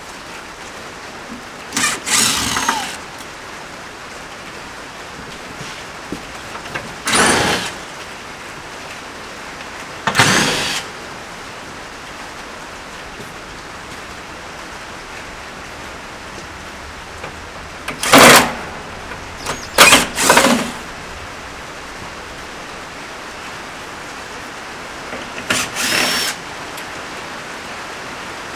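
Cordless drill-driver run in about seven short bursts, its motor pitch rising and falling with each one, backing out and loosening the screws that hold the feet to the bottom of a refrigerator frame. A steady hiss underneath.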